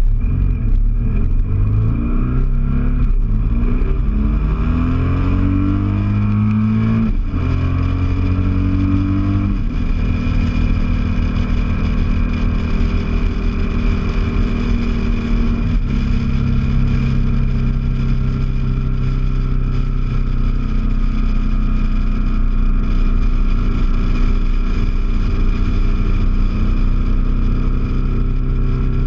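BMW R 1200 GS Adventure's boxer-twin engine accelerating up through the gears, its pitch rising and dropping back at each upshift several times over the first ten seconds, then holding a steady cruise.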